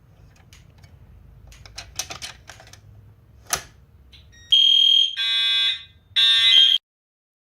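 Clicks and knocks from an Edwards 279B manual pull station being handled and pulled, with a sharp snap about three and a half seconds in. About a second later the fire alarm horns go off in three loud, high-pitched blasts of roughly half a second each, then the sound cuts off abruptly.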